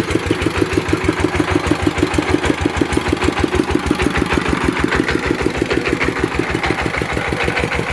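Engine of a well-drilling rig running steadily at a constant speed, with an even rapid beat of about six or seven pulses a second.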